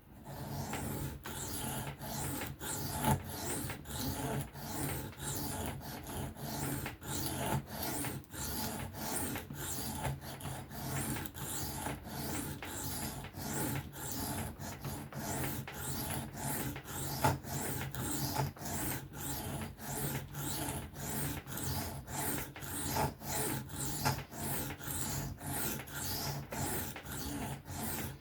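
A knife blade stroked back and forth over a diamond sharpening plate during freehand sharpening, a steady rhythmic rasping of about two strokes a second. The steel of the 14C28N blade is being ground at the bevel to raise a burr.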